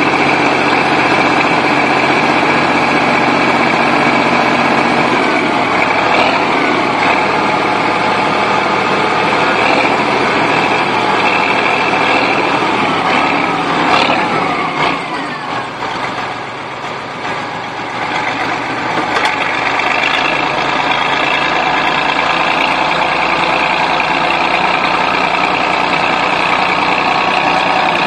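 Bulldozer's diesel engine running hard with a steady mechanical din. The engine note shifts about a fifth of the way in, and again around the middle, where the sound briefly drops in level before picking back up.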